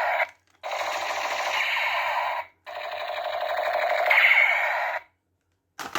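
Toy gun's electronic machine-gun sound effect: three bursts of rapid rattling, each about two seconds long and stopping abruptly, then a few clicks near the end.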